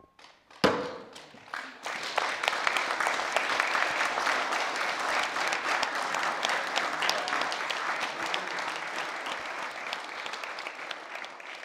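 A single loud percussive hit about a second in, then an audience applauding: many hands clapping that build up within two seconds and carry on steadily, easing slightly near the end.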